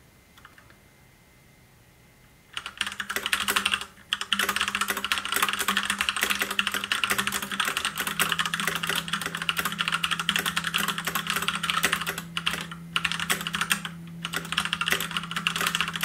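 Fast touch-typing on an Ajazz K870T mechanical keyboard with brown switches, a dense clatter of keystrokes starting about two and a half seconds in. There is a brief pause near four seconds and short lulls later on. The brown switches are tactile but not clicky, quieter than blue switches.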